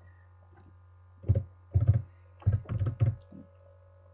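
Computer keyboard keystrokes: a few separate key clicks about a second in, then a quick run of clicks, over a faint steady low hum.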